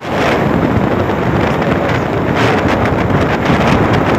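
Loud wind buffeting the microphone, starting suddenly and then holding steady.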